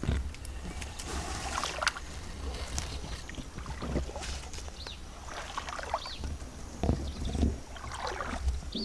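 Shallow muddy water sloshing and splashing in irregular bursts, as in wading or a fish stirring in a flooded paddy, over a low rumble.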